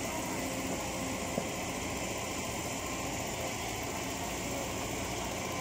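Caterpillar E120B hydraulic excavator's diesel engine running steadily as the machine works, with one sharp tick about a second and a half in.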